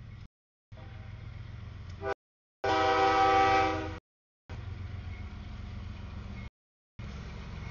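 CSX freight diesel locomotive sounding its air horn once in a loud chord of a little over a second, over the low rumble of the train running through the grade crossing. The sound drops out several times in short gaps of silence.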